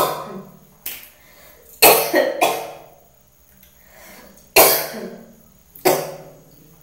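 A woman coughing into her hands: a fit of about four hard coughs, a second or more apart, with quiet between them.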